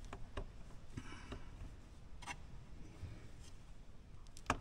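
Faint, scattered small clicks and taps from hands handling the plastic and metal parts of an RC truck's chassis and drive shaft, with one sharper click near the end.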